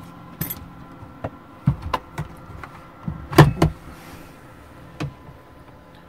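Knocks and clatter of hands rummaging in a thermoelectric cool box, opening it and handling its contents: scattered clicks, with the loudest knocks clustered about halfway through. A steady hum of the cool box's cooling fans runs underneath.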